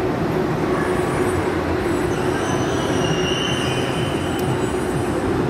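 Steady rumbling din of a busy indoor amusement arcade, with a low steady hum under it and no clear single event.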